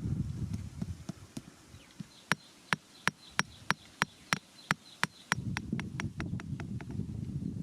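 A run of sharp, evenly spaced taps, about three a second for some four seconds, between stretches of low rustling and scraping.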